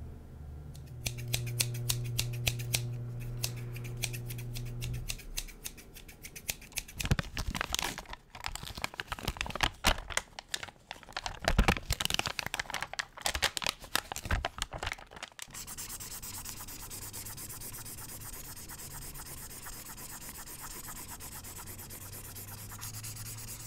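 Fingers scratching and tapping a sheet of puffy stickers close to a microphone, giving a dense run of crackly taps and scratches through the middle stretch. A steady low hum sits under the first few seconds, and a steady hiss with the same hum fills the last several seconds.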